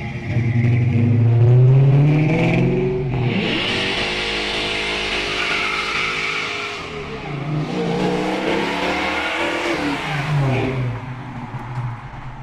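1965 Ford Mustang GT's 289 V8 being driven hard through Flowmaster mufflers, the exhaust note rising and falling over several pulls and fading near the end.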